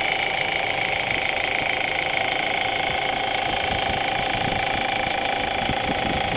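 Audi A4 1.8T turbocharged four-cylinder engine idling hot with a steady ticking from the valve train, the noise that turned out to come from a failing hydraulic cam chain tensioner at the back of the cylinder head.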